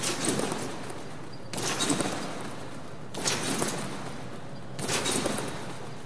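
A trampoline mat being bounced on: a landing about every second and a half, four in all, each a short noisy burst.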